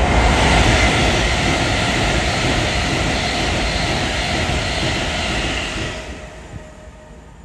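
Northern Class 156 diesel multiple unit running toward the listener on curved track, with its diesel engine and its wheels on the rails as a loud, steady noise. The sound drops away sharply about six seconds in.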